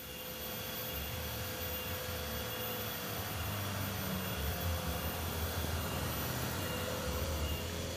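Small hatchback's engine and tyres growing louder as the car comes round a hairpin bend and drives close past, with a low rumble and a faint wavering whine.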